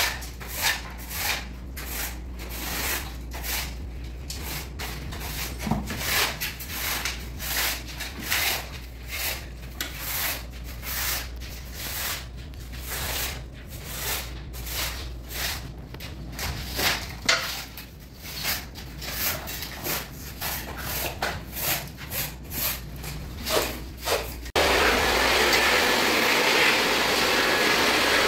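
Brush swept in quick, uneven strokes over dusty electrical distribution boxes, one or two strokes a second. About 24 seconds in, an electric hand blower switches on suddenly and runs steadily, blowing the dust off.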